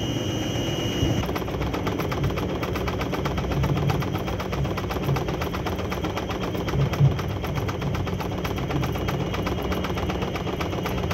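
Mavitec paddle depackager running with a load of packaged dry pastries: a fast, even rattle of paddles and material clattering in the machine over a low hum. A high whine cuts off about a second in.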